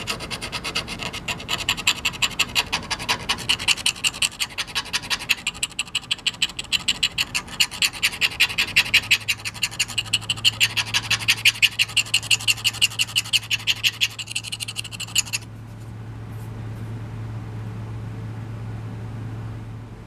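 Steel upholstery sewing needle scraped rapidly back and forth in the narrow nail nick of a pocket knife blade, scratching out packed grime. The scraping stops about fifteen seconds in, leaving a low steady hum.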